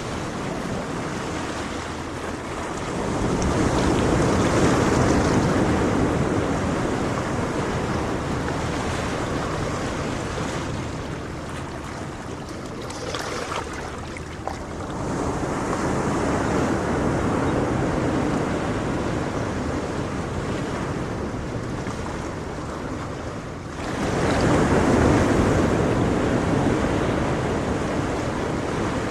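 Ocean surf: waves breaking and washing in, three surges in turn, each rising out of a steady rush and slowly fading; the last one comes in most sharply, near the end.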